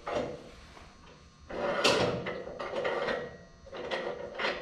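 Clunks, knocks and scraping of a log being worked into place on a portable bandsaw mill's steel bed. There are several separate knocks, with a longer rattling, scraping stretch in the middle.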